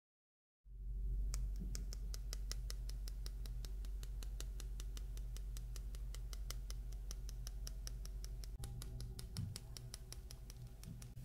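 Cocoa powder being sifted over a tiramisu, the sifter tapped in quick, even taps about five or six a second, with the fine patter of falling powder.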